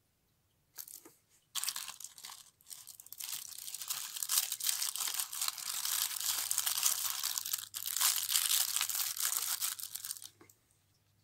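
Sheet of tissue paper being crinkled and rustled by hand: a short rustle, then continuous crackling from about a second and a half in, with a brief break, stopping shortly before the end.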